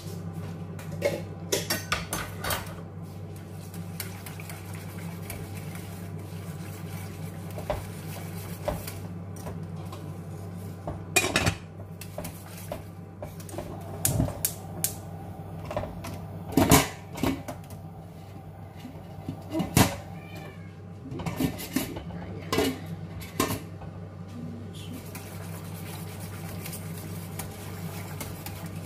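Metal wire whisk stirring béchamel sauce in a stainless steel saucepan, scraping and clinking against the pan, with now and then a louder clank of steel pots and lids. A steady low hum runs underneath.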